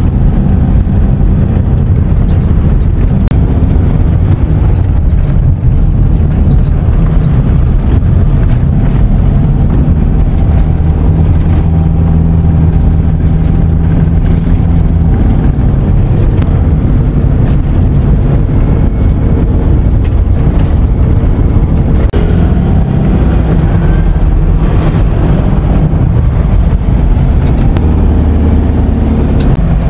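Car engine and road noise heard from inside the cabin while driving, a steady low drone whose pitch shifts slightly, with a few faint knocks.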